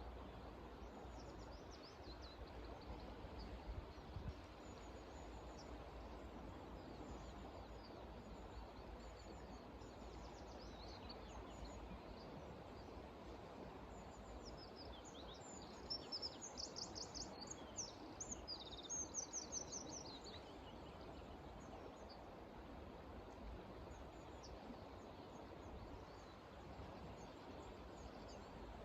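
Small birds chirping and trilling, faint and high-pitched, busiest in a run of quick repeated notes about halfway through, over a steady low outdoor background hiss.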